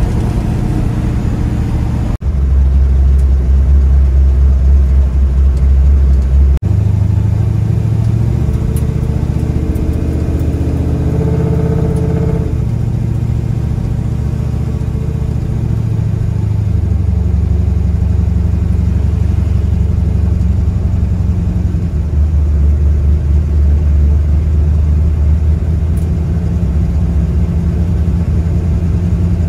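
Old pickup truck's engine droning at highway cruising speed, heard from inside the cab over tyre and road noise; its pitch shifts a few times.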